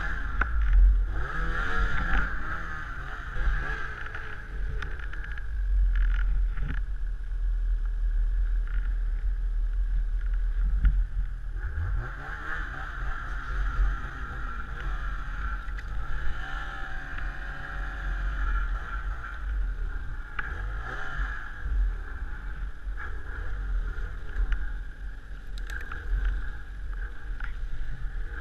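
Snowmobile engine running under throttle through deep powder, its pitch rising and falling again and again as the rider works the throttle, over a steady low rumble.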